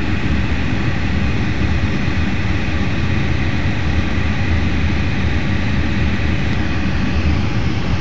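Steady loud low rumble with an even hiss over it: outdoor background noise on a phone microphone, without distinct events.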